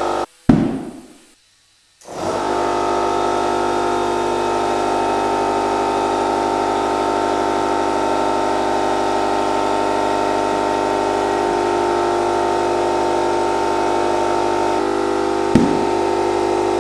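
A sharp thump about half a second in, then, after a short gap, an air compressor running steadily and loudly, with an even mechanical hum that stops abruptly.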